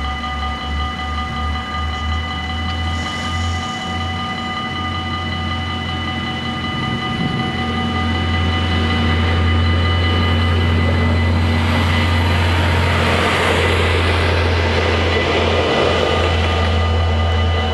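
Dutch level-crossing bells ringing steadily while a Stadler GTW diesel multiple unit approaches and passes over the crossing. Its engine and wheel noise grows from about eight seconds in and is loudest in the last few seconds.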